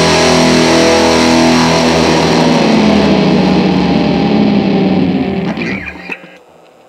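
Indie rock recording: distorted electric guitars and band holding a loud sustained chord. It fades about five seconds in and dies away by about six seconds, leaving only a faint remnant.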